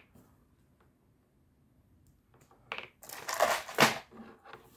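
Plastic packaging crinkling and rustling in a dense burst about three seconds in, with a few light clicks just before it, as multimeter test-clip leads and their plugs are handled.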